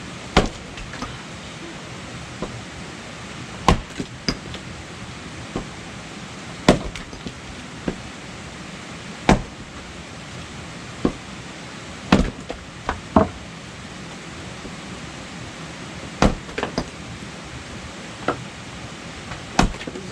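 Firewood being chopped with an axe: a dozen or so sharp, separate strikes, one every one to three seconds, a few in quick pairs.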